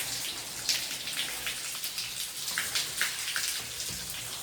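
Water splashing and dripping in a storm drain: irregular sharp drips and splashes over a steady wash of running water.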